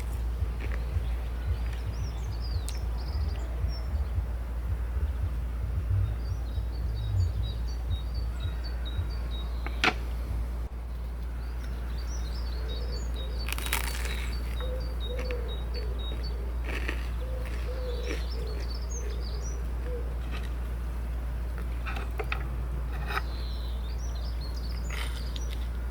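Small birds chirping in quick twittering runs over a steady low rumble, with a sharp click about ten seconds in.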